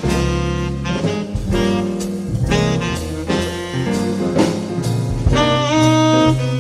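Small jazz combo playing: a saxophone carries the melody over walking double bass and a drum kit.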